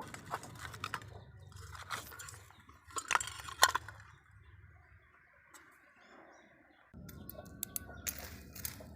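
Irregular clicking and crunching, as of hard small objects being handled, loudest a little past three seconds in, then a quieter stretch before a low hum and more clicks return abruptly near the end.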